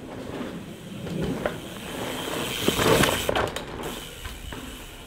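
Mountain bike passing on a dirt trail: tyres rolling over soil and stones with a few clicks and knocks, getting louder to a peak about three seconds in, then fading away.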